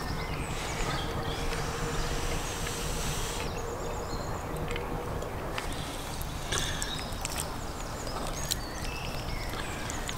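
Outdoor background of steady low noise with birds chirping in short high calls throughout, and a few short clicks.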